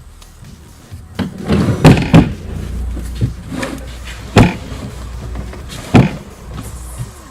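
Several loud, sharp thumps and bangs, about five in all, over a low rumble.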